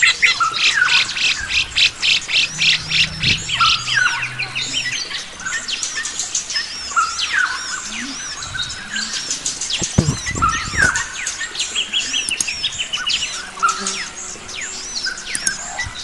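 Several wild forest birds calling and singing at once. A rapid run of repeated chirps, about four a second, fills the first few seconds, followed by scattered high arching whistles and quick falling notes.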